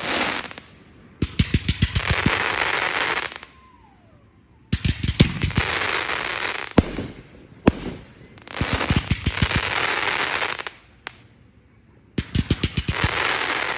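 Fireworks going off in four bursts, roughly every three and a half seconds. Each burst is a quick run of sharp bangs followed by about two seconds of dense crackling.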